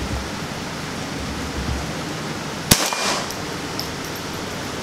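A single .22 LR shot from a Ruger 10/22 rifle about three seconds in, sharp and followed by a brief ring, over a steady background hiss.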